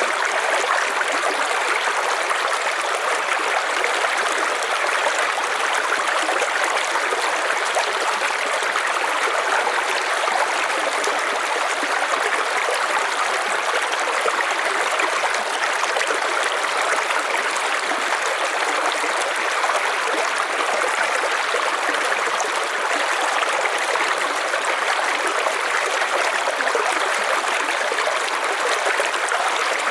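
A river's water running over stones in a steady rush, with a trickling and gurgling texture.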